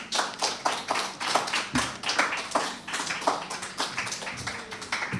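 A small audience applauding, many hands clapping irregularly, fading near the end.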